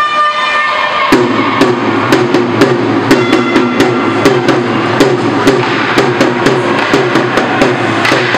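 Music with a steady drum beat of about two beats a second, which kicks in about a second in after a held chord.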